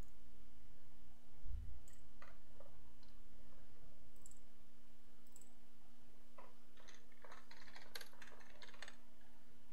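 Computer mouse clicks, then a quick run of keyboard keystrokes in the last few seconds, over a steady low electrical hum. A dull low thump about a second and a half in.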